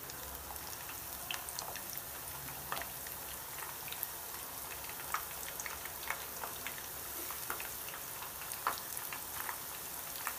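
Cornflour-coated soya chunks deep-frying in hot oil: a steady sizzle with scattered pops and crackles as more pieces are dropped into the oil.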